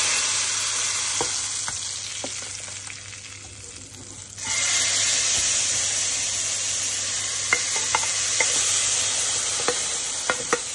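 Hot tadka of oil, ginger-garlic paste and cumin sizzling loudly as it is poured into a pot of dal, dying down over a few seconds. About four and a half seconds in the sizzle suddenly flares up again, with a metal spoon clinking against the pot near the end.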